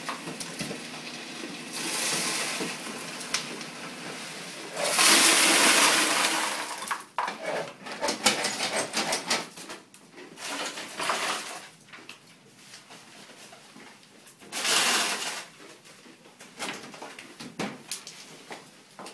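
Ice cubes clattering out of a motel ice machine's hopper into a plastic bucket in several rushes, the loudest about five seconds in and lasting some two seconds, another near fifteen seconds. Between them come knocks and rattles of hands working the dispenser.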